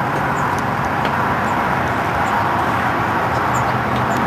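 Steady outdoor background noise: an even rumble and hiss with no clear source, and a few faint short high chirps now and then.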